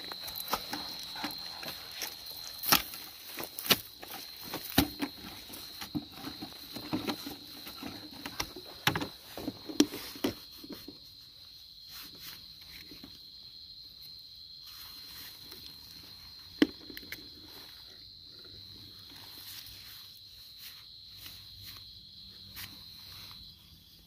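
A hoe chopping and scraping into soil in a run of irregular strikes through the first ten seconds or so, with one more strike later, as a cricket burrow is dug out. Under it, a steady high insect trill stops near the end.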